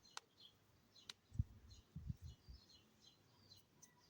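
Near silence with faint bird chirps in the background, two light clicks in the first second or so, and a few soft low knocks around the middle.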